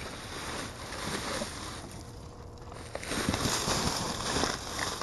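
Rustling and crinkling of trash bags, cardboard and refuse being rummaged through in a dumpster, with small knocks; it grows louder about three seconds in.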